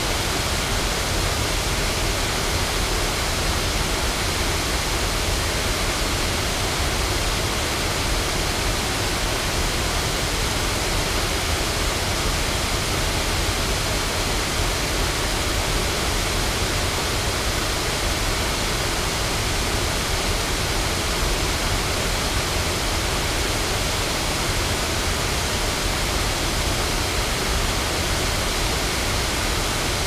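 Stroudwater Falls: river water spilling over a low dam and rushing over the rocks below, a steady, unbroken rush.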